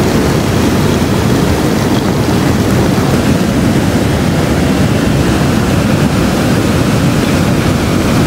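Steady, loud rushing noise, heaviest in the low end: wind buffeting the microphone along with a flowing river.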